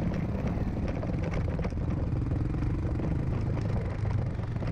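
Royal Enfield Himalayan's 411 cc single-cylinder engine running steadily at low speed on a rough gravel track, with light clatter from the stones and suspension.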